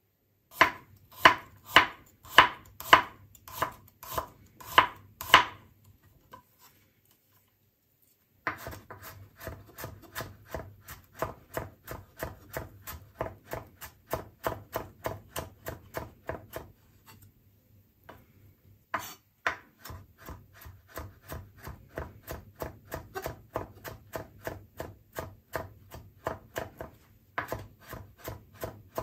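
Kitchen knife chopping garlic on a wooden cutting board: a handful of slower, louder strikes first, then after a pause a fast, even mincing rhythm of about four knife strikes a second, broken once by a short pause.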